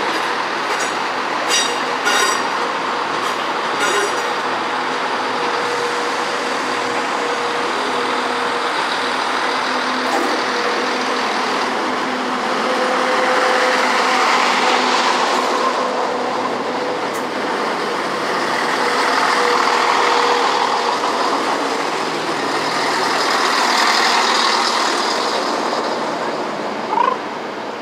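Train moving through a station, with a run of sharp clicks in the first few seconds, a steady hum, and running noise that swells and eases several times; a single knock near the end.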